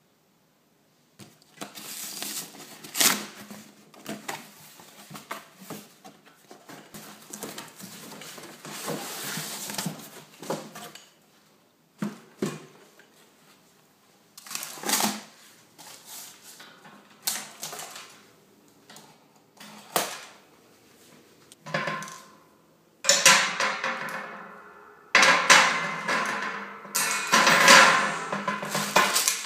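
Metal wire shelving being unpacked by hand: cardboard and plastic packaging rustling and scraping, and the wire shelves clinking and clattering as they are lifted and set down. The handling comes in scattered bursts, busiest in the last few seconds.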